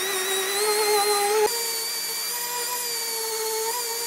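Random-orbit sander running on a car's body filler with a steady whine that wavers slightly in pitch. About a second and a half in there is a click and the pitch steps up a little.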